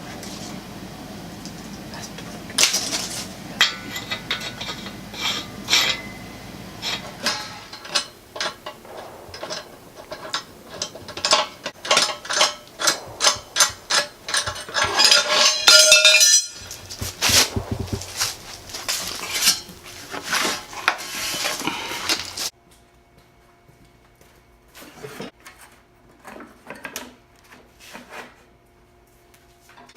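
Irregular metallic clinks and knocks from the steel hardware of a steam-bending jig being worked, thick and busy for most of the time, then thinning to a few scattered clicks over a faint hum near the end.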